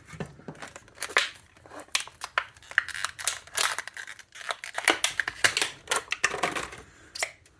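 New tool packaging being opened and handled by hand: a dense run of irregular crackles and clicks.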